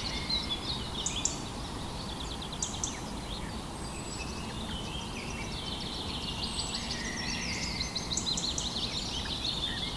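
Outdoor nature ambience: small birds chirping and trilling repeatedly over a steady low background hiss.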